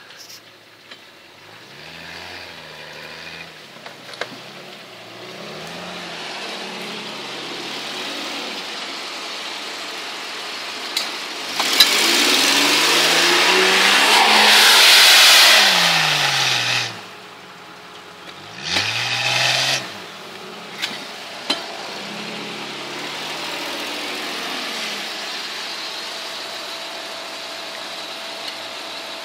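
Jeep Cherokee XJ's engine revving up and down as it claws through deep sand with its wheels spinning. About twelve seconds in it comes close and is at its loudest for several seconds, with the hiss of sand thrown by the spinning tyres. After a brief drop and another short rev, it settles to a steadier, lower run.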